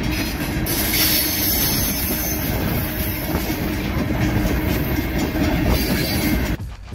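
Loud, steady rushing and rumbling noise that cuts off suddenly near the end.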